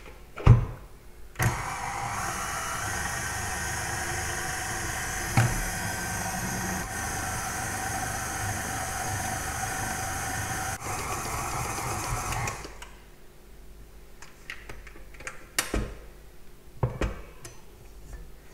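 KitchenAid stand mixer's motor running steadily while its dough hook mixes white bread dough, for about eleven seconds before it is switched off. Afterwards a few light knocks and scrapes as the dough is pulled off the hook and the sides of the metal bowl.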